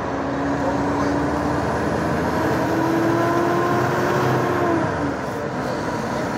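Intercity coach on the highway: steady engine and road noise, with an engine tone that rises slowly for a few seconds and falls away about five seconds in.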